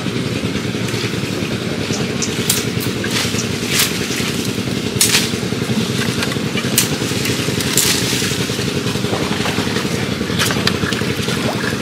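Small boat engine running steadily, with scattered sharp clicks and scrapes over it.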